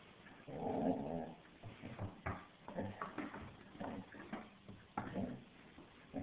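Six-month-old black Labrador retriever puppy growling in play over a toy: one longer growl about half a second in, then a run of short growls mixed with a few sharp knocks.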